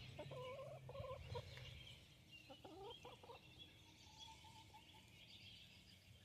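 Faint calls of farm poultry, a few short pitched calls in the first three seconds and another short run about four seconds in, with faint high bird chirps behind them.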